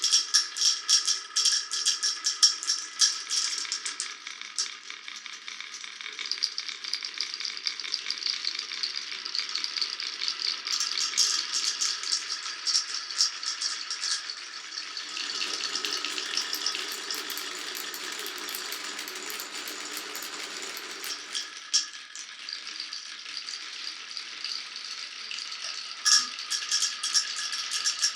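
Many glass marbles rolling and clattering along a wooden marble run in a dense, continuous rattle of clicks that starts suddenly. A lower rolling rumble joins from about 15 to 21 seconds in.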